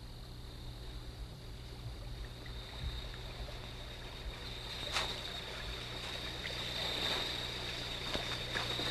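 Forest ambience with a steady high hum. From about five seconds in come a few sharp snaps and crackles of footsteps on twigs and leaf litter.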